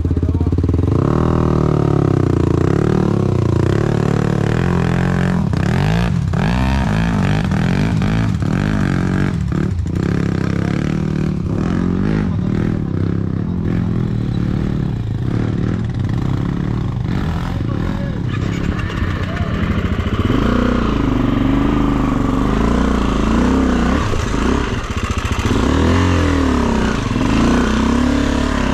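Off-road dirt bike engines running and revving up and down again and again on a rocky climb, with a few sharp knocks about six to ten seconds in.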